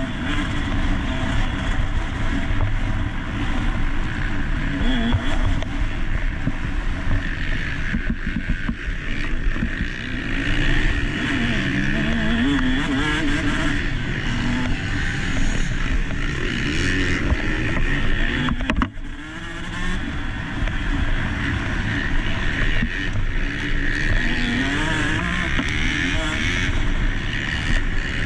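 Motocross dirt bike engine heard onboard at race pace, revving up and down as the throttle opens and closes, its pitch rising and falling. The loudness drops briefly about two-thirds of the way in.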